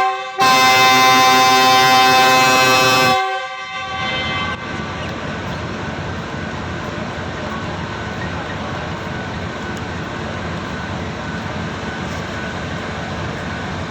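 A GEU-20 (GE U20C) diesel locomotive's multi-tone air horn sounds a loud, steady blast of about three seconds that dies away. A steady rushing noise follows.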